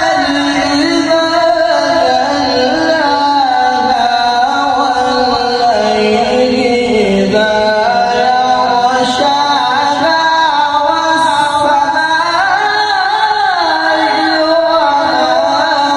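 A man reciting the Quran in the melodic tilawah style into a microphone, amplified through a loudspeaker. He sustains one long, ornamented phrase, the melody dipping lower around the middle before climbing again.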